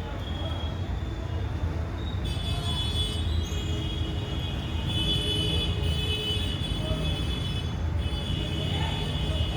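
Acer Nitro 5 gaming laptop's cooling fan running noisily: a steady low rattling drone under a high whine that grows louder about two seconds in. It is the rattling, vibrating fan fault that the fix is meant to cure.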